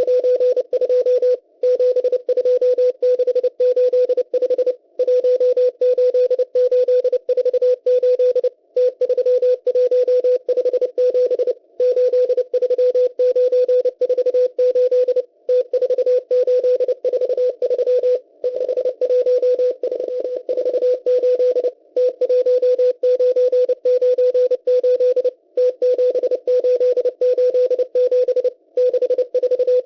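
Morse code from the M12 number station received on shortwave: a single steady beeping tone keyed rapidly in dots and dashes, sending groups of numbers, with a short pause between groups about every three and a half seconds.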